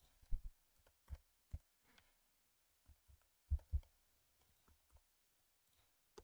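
Faint, irregularly spaced clicks of a computer mouse and keyboard, about a dozen in all.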